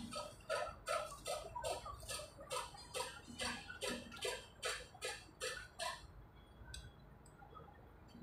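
A regular series of sharp ticks or taps, about two to three a second, that stops about six seconds in. A couple of single clicks follow.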